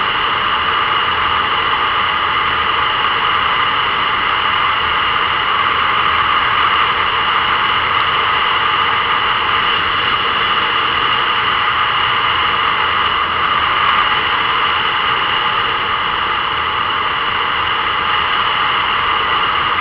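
Motorcycle cruising at a steady speed: a constant rush of wind and engine noise on a bike-mounted camera's microphone, with no change in pitch or level.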